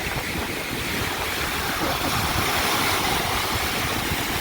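Ocean surf washing up the beach, a steady rush that swells a little about two seconds in, with wind thumping on the microphone underneath.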